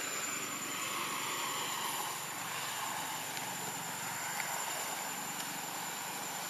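Steady outdoor background noise: a distant engine-like drone with a thin, constant high whine above it.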